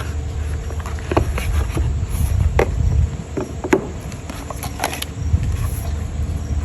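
Watch packaging being handled and opened: scattered crinkles, rustles and light taps, over a steady low rumble.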